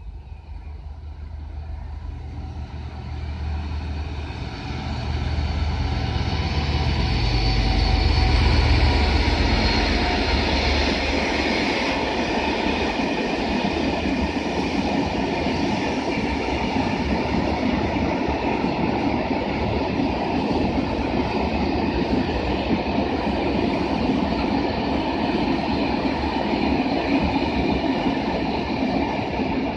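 Class 66 diesel freight locomotive (EMD two-stroke V12) approaching and passing, its low engine throb loudest about eight seconds in. A long train of hopper wagons follows, rolling past with a steady rumble.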